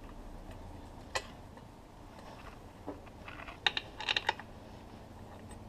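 A few light clicks and taps, with a quick cluster of them about four seconds in, as the mounting bolts of an outboard's lower unit are fitted and started by hand into the housing.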